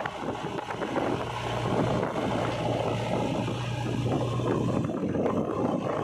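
JCB 3DX backhoe loader's diesel engine running steadily under load as the front loader bucket pushes a heap of loose soil and clods, the earth crumbling and scraping ahead of the blade. The steady low engine note drops back about five seconds in.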